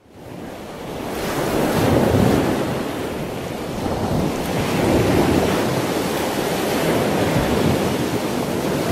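Sea waves washing with wind, a steady rushing noise that fades in at the start, then swells and eases in slow surges.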